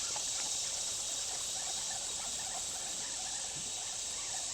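Steady, high-pitched chorus of insects, without a break.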